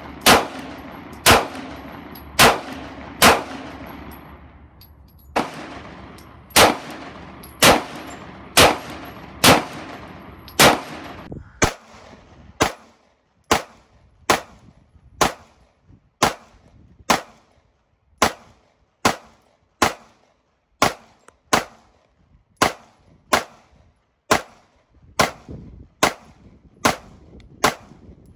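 SIG Sauer P320-series 9mm service pistols (M17, then M18) firing a steady string of single shots, about one a second. The first shots carry a long echoing tail; after a cut about 12 seconds in, the M18's shots come slightly quicker and drier.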